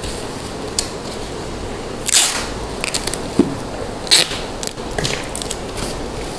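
Black plastic garbage bag crinkling in short, scattered bursts as it is folded and pressed around a cardboard box, over a steady background hiss.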